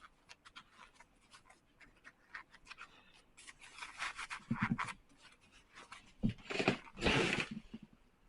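Hands rubbing and working a Nike Air Force 1 sneaker and its laces: a run of small clicks and scuffs, with two louder rubbing passes about four and seven seconds in.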